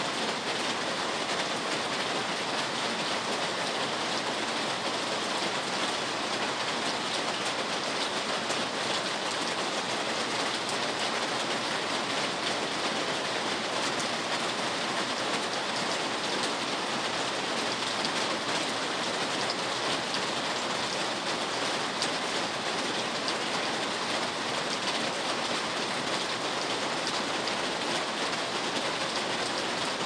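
Steady rainfall: an even, unbroken hiss of many drops that does not let up or change.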